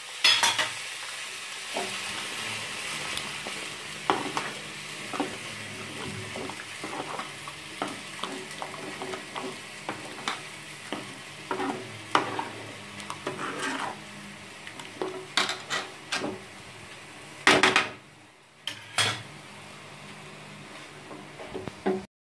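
Metal spoon stirring and scraping in a metal pot of egg curry, with many clinks and scrapes against the pot, a few of them loud, over a steady sizzle from the cooking curry. The sound cuts off just before the end.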